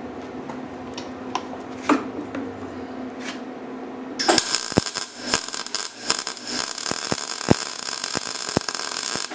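MIG welder arc crackling steadily as a bead is run over a break in a push mower's deck. The welding starts about four seconds in and cuts off just before the end, after a few light taps and clicks while the gun is positioned.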